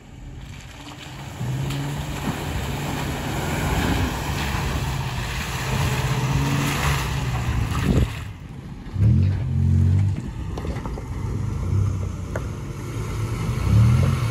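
Lifted 4x4 pickup truck's engine running under load off-road: a steady pull at first, then revved up hard about two-thirds of the way in and again near the end, as on a climb.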